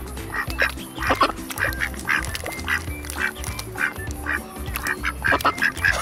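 Ducks quacking close by in short repeated calls, about two a second, over background music with a steady bass line.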